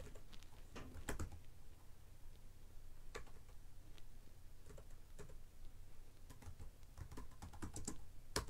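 Typing on a computer keyboard: scattered keystrokes in short clusters with pauses between them.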